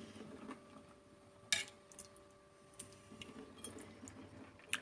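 Metal ladle clinking against a ceramic soup plate and pot as thick soup is ladled out, with soft liquid slops between the clinks. There are a few sharp clinks, the loudest about a second and a half in, over a faint steady hum.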